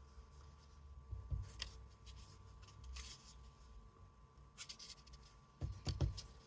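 Light scratchy strokes of a brush on watercolour cardstock, with soft knocks on the desk, one about a second in and a few close together near the end.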